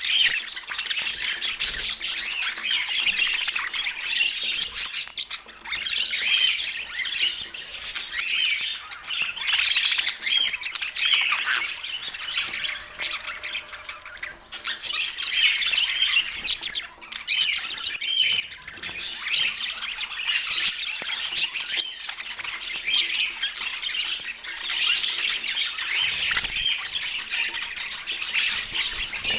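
Budgerigars chattering: a continuous, busy stream of warbles, chirps and squawks.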